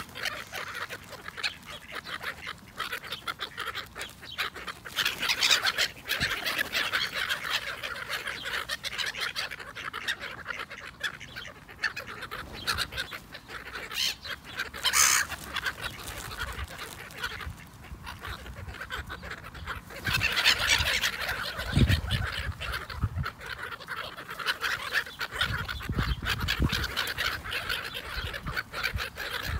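A flock of black-headed gulls calling over and over as they squabble for bread, with mallards among them. One sharp, loud call comes about halfway through, and a few low thuds come in the last third.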